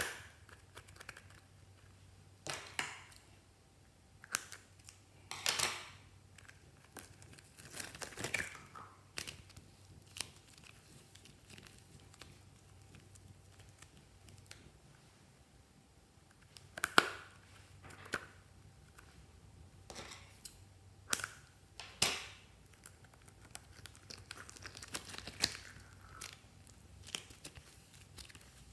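Hands pressing and pulling sticky slime and a squishy toy in a glass dish: irregular short crackles and squelches every second or few, with quiet between. The sharpest come near the start and about two-thirds of the way through.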